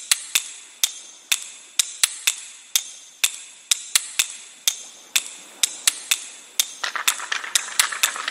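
Sharp, hard clicks of crab claws and legs, about three a second at uneven spacing, each ringing briefly. Near the end a quicker, scratchier clicking of crabs scrabbling in sand joins in.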